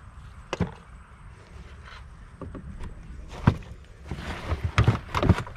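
Fishing gear being loaded into a car's boot: a few knocks and clunks as items are set down, the loudest about three and a half seconds in, then rustling and a quick run of clunks near the end as a bag and rod holders go in.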